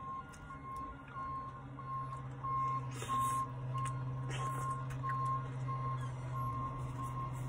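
A vehicle's reversing beeper sounding a steady beep about one and a half times a second over a low engine hum. Two short slurping licks at a soft-serve ice cream cone come about three and four and a half seconds in.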